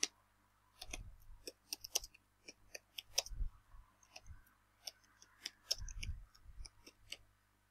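Computer keyboard being typed on: an irregular run of quiet key clicks, several a second, with short pauses between words.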